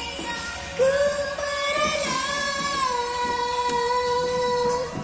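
Background music: a woman singing a slow Malay-language pop song, holding one long note from about a second in, stepping down in pitch partway through, over the band's accompaniment.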